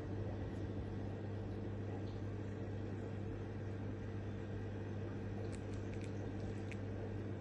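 Steady low mechanical hum of a running appliance or fan, with a few faint light ticks near the end.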